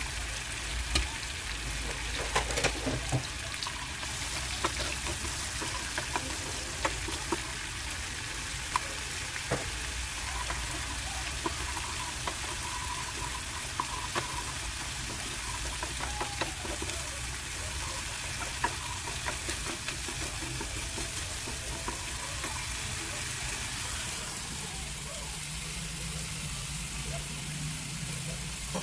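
Food sizzling as it fries in a pan, with a steady hiss, while it is stirred: a utensil clicks and scrapes against the pan at irregular moments.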